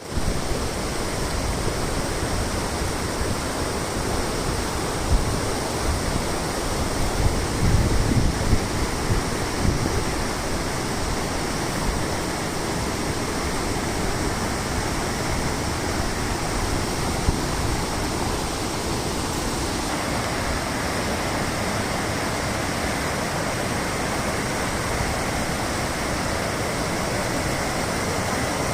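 Waterfall: a steady, loud rush of falling water, with uneven low rumbling between about five and ten seconds in.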